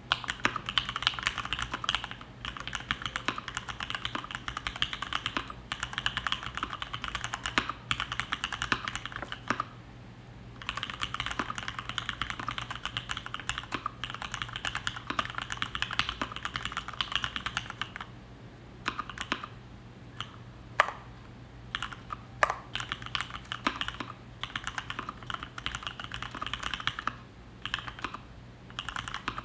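Typing on a DuckMini v1 mechanical keyboard with linear Cherry MX Black switches on 62 g springs and PBT dye-sublimated keycaps. Fast, continuous keystrokes with a brief pause about ten seconds in, then slower, separate keystrokes with a few louder single strokes in the last third.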